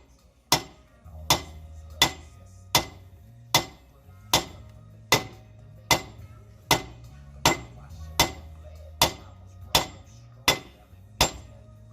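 Hammer striking a rusted-on rear brake drum of a 2008 Jeep Compass to break it loose from the hub: a steady run of sharp metallic bangs, about one every three-quarters of a second, each with a short ring.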